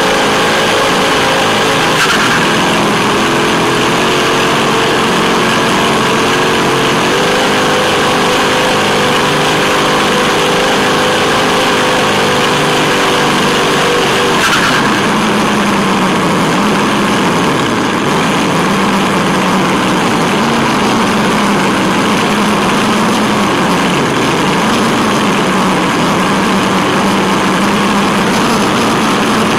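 Radio-controlled Tamiya Wild Willy 2 truck driving on a paved path, heard from onboard: a steady motor-and-gear whine over tyre and road noise. About halfway the whine drops lower and then wavers up and down with the throttle. There is a knock about two seconds in and another about halfway.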